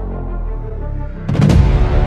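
Music with a sudden heavy boom-like hit about a second and a half in, after which it plays louder.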